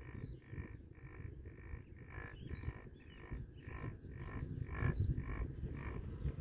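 Doppelmayr detachable chairlift's haul rope running over the tower sheaves, heard from the chair as a pulsing hum of about two to three pulses a second over a low wind rumble. It grows loudest as the chair passes a lift tower.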